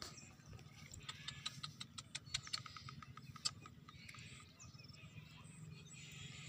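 Faint small clicks and ticks, then light water sounds from about four seconds in as a hand works at the surface of shallow paddy water with an eel-fishing line.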